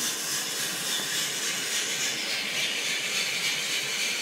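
Giesen W1 coffee roaster running with a batch roasting: a steady, even rushing hiss.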